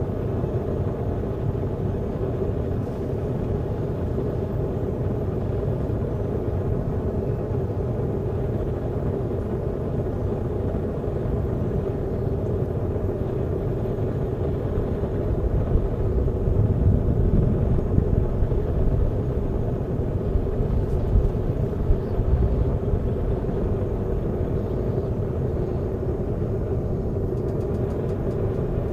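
Steady roaring rumble of a backyard metal-melting furnace running, with a steady hum inside the roar; it swells louder for several seconds past the middle.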